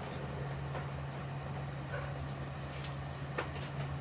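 A steady low hum at one pitch, with a couple of faint clicks in the second half.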